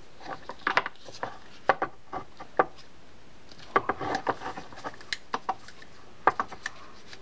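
Irregular small clicks and taps from the wire bale and rotor of a Penn Battle 4000 spinning reel as they are handled, with the bale being worked into alignment.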